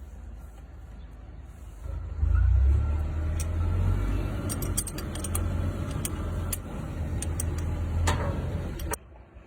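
Car engine running after a turbocharger replacement, low and steady, growing much louder about two seconds in and holding there, with a few light clicks over it.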